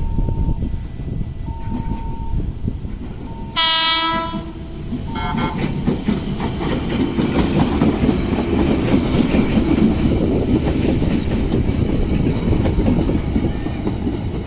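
Train horn sounding a loud blast about four seconds in and a shorter toot a second later, then a train passing close by with a steady rumble and wheel clatter over the rails.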